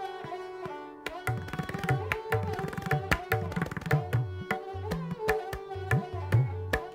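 Hindustani classical music: a sarangi plays a sliding melody, and about a second in the tabla comes in with quick strokes, the bayan's deep bass notes bending in pitch under the sarangi.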